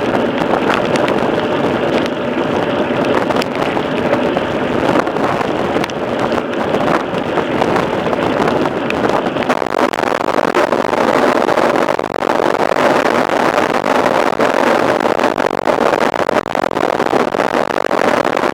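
Steady rushing noise of a mountain bike ridden fast: wind buffeting the camera microphone, with frequent clicks and rattles from the bike on the rough trail.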